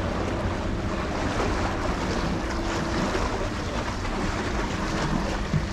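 Steady wind on the microphone over seawater washing against breakwater tetrapods, with a faint, steady low hum underneath.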